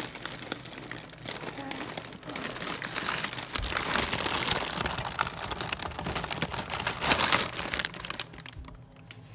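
Plastic bags and crisp packets crinkling and rustling as hands rummage through them, a continuous crackle of small clicks that dies down near the end.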